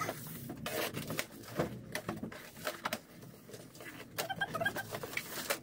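Rustling and light knocks of cardboard boxes and boxed medicine packs being handled and unpacked, in short irregular clicks and scrapes.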